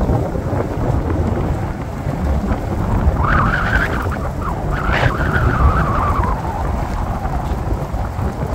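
Wind buffeting the microphone, a steady low rumble throughout. From about three seconds in, a fainter wavering higher-pitched sound rises over it for a few seconds.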